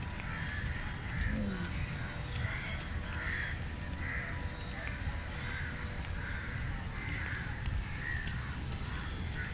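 Crows cawing over and over, about once a second, over a steady low rumble.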